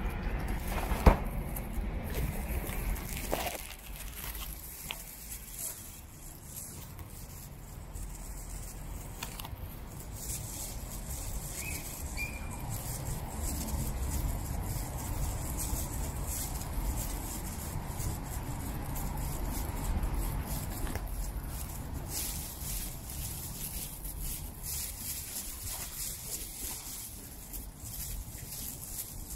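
Footsteps on wet brick paving over a steady low rumble of street traffic, with one sharp knock about a second in.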